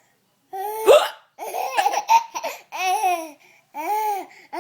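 A woman hiccups sharply about a second in, and a baby laughs in reply: a run of high-pitched laughs, about one a second.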